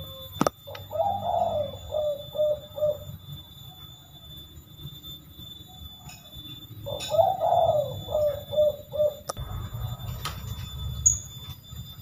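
Spotted dove (tekukur) cooing twice, each phrase a longer opening coo followed by a run of short 'kuk' notes: the 'kuk 3x' song variety that keepers prize as rare. A sharp click comes just before the first phrase.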